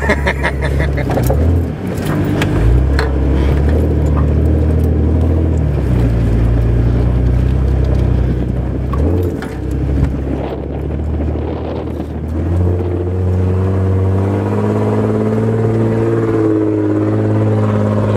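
Toyota FJ Cruiser's 4.0-litre V6 working hard under load as the truck climbs a steep dirt bank. The engine note changes several times as the throttle is worked, then settles into a steadier, higher note about two-thirds of the way in. A few knocks and rattles come in the first couple of seconds.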